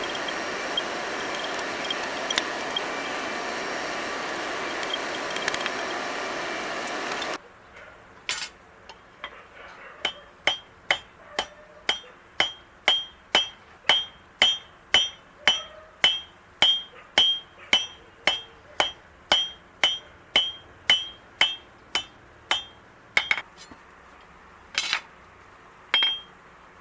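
A steady rushing noise that cuts off abruptly about seven seconds in, then a hammer striking steel on an anvil: a run of ringing blows at about two a second, followed by a few scattered blows near the end.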